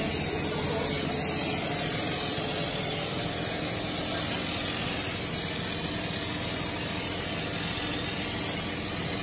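Graco RTX 5500 texture sprayer running steadily, its electric motor humming under a continuous hiss of the spray gun.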